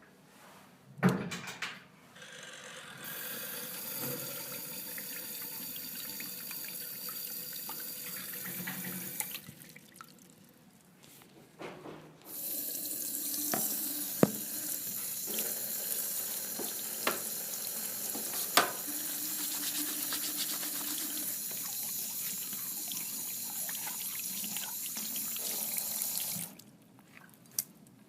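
Water running from a tap into a sink in two long, steady runs. The tap is turned on, off, then on again, with a few clicks along the way.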